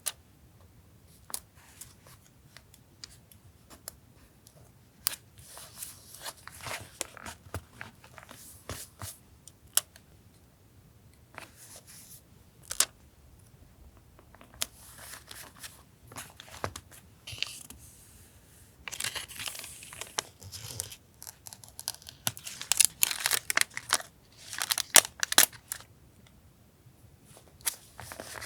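Paper being worked by hand for a collage journal: irregular rustling and tearing with small sharp clicks and taps, busiest about two-thirds of the way through.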